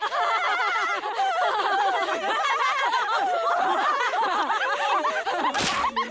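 Several women cackling with laughter together, their shrill laughs overlapping without a break. A short harsh burst of noise cuts in near the end.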